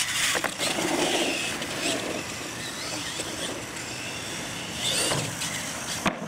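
Radio-controlled monster truck running over wooden ramps on concrete: a motor whine and tyre noise, with several short thumps as it lands off the jumps.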